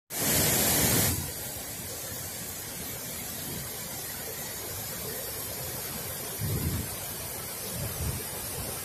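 Steady rush of water pouring over the concrete walls of a spillway. A much louder hiss fills the first second and cuts off abruptly, and wind buffets the microphone with low rumbles twice near the end.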